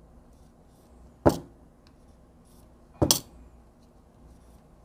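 Two sharp taps, about two seconds apart, as excess solder is knocked off a too-thick solder joint so the part can fit.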